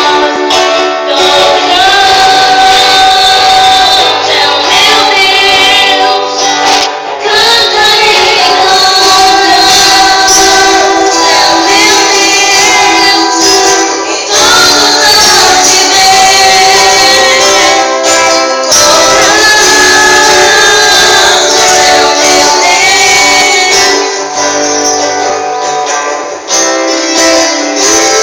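Music: a woman singing over instruments, very loud and thin-sounding with almost no bass.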